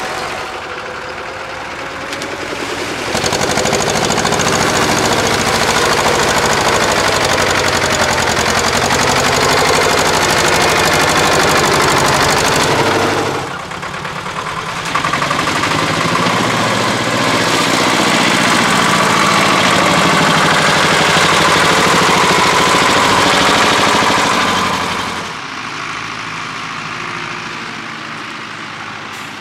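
Tractor engine running hard, loud in two long stretches with a short dip about halfway through, then falling quieter near the end.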